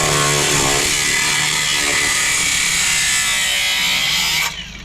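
Handheld power cutting tool running under load as it cuts through the rusted sheet-metal floor pan of a BMW 2002. It is a loud, steady, high-pitched grinding that stops suddenly about four and a half seconds in.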